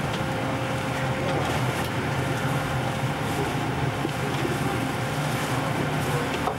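Steady hum of ventilation and machinery inside a battleship's fire-control plotting room: a constant low drone with a faint steady whine above it.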